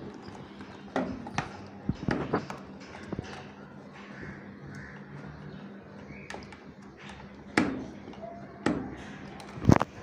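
Screwdriver and plastic wire connectors clicking and knocking against an LG washing machine's control board as tight connectors are pried off: a scatter of short sharp clicks, the loudest near the end.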